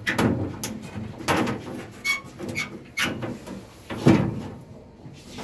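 Irregular knocks, clicks and scraping from parts being handled on a wall-mounted gas combi boiler, the loudest knock about four seconds in.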